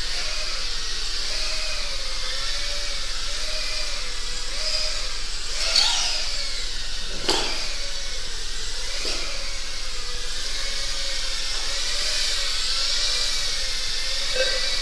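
Several small indoor FPV racing drones buzzing with a high electric-motor whine. Their pitch rises and falls with throttle, and there are two sharp knocks about six and seven seconds in.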